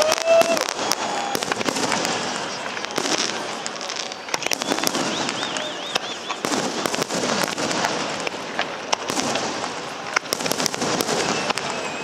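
Fireworks display: aerial shells bursting in quick, dense succession, with continuous crackling between the bangs.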